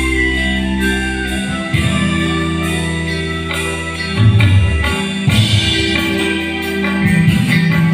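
Live band playing amplified instrumental music through a stage PA during a sound check: electric guitars, bass, keyboards and drum kit over steady bass notes and a regular drum beat.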